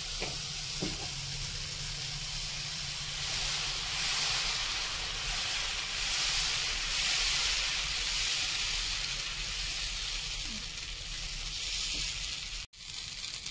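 Ragi dosa batter sizzling on a hot tawa, a steady hiss with a couple of faint clicks in the first second. The sound cuts out for a moment near the end.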